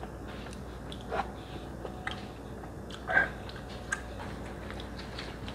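Close mouth sounds of someone chewing a bite of pizza: soft wet chewing with a few short, crisp clicks, the loudest about three seconds in.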